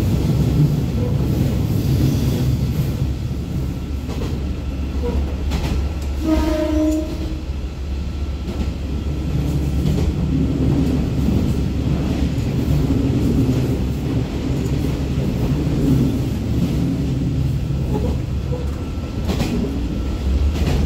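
KiHa 47 diesel railcar under way: its diesel engine running with steady rail and running noise. A brief tone sounds about six seconds in.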